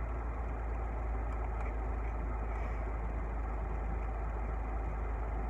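Car engine idling, heard from inside the cabin as a steady low rumble with a soft hiss.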